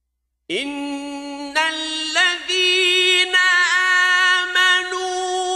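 A man's voice reciting the Quran in slow, melodic tajwid style, starting about half a second in after a pause between verses. He holds long, drawn-out notes with ornamental pitch bends and slides.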